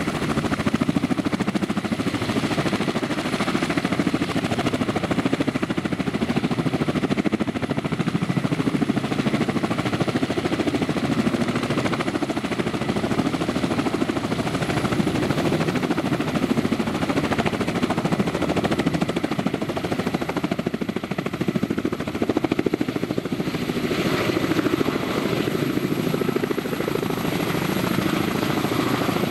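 Kamov Ka-32 helicopter's twin turboshaft engines and coaxial rotors running at speed, a steady loud noise with a rapid even beat from the blades. Near the end the helicopter is lifting off into a hover.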